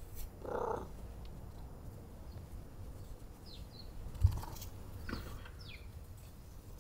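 Small birds chirping in the background: a few short, high chirps that fall in pitch in the second half. A single dull thump just past four seconds is the loudest sound.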